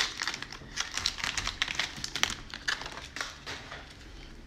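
Cellophane wrapper of a Donruss baseball card pack crinkling and tearing as it is peeled open by hand, a dense run of crackles that thins out after about three and a half seconds.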